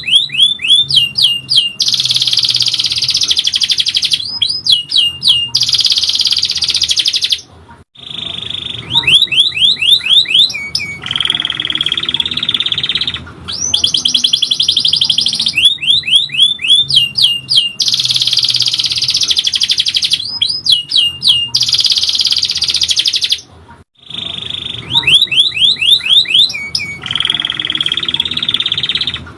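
Domestic canary singing a long song of fast rolling trills and rapid falling whistled notes. The same song passage repeats about every sixteen seconds, with a brief break about a quarter of the way in and again near the end, as in a looped training recording.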